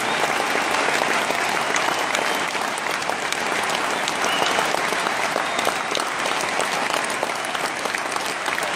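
Large arena crowd applauding steadily, a dense rain of thousands of hand claps.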